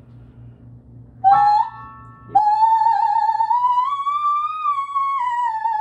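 A woman's high singing voice doing a vocal exercise on an open vowel: a short note about a second in, then a long held note that glides slowly up and back down.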